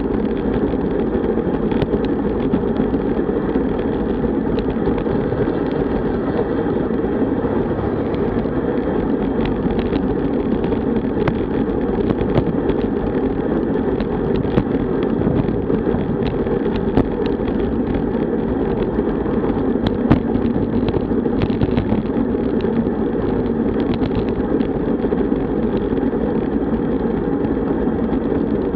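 Steady rush of wind and road noise on a camera carried on a road bike moving at about 35–40 km/h, with occasional faint clicks.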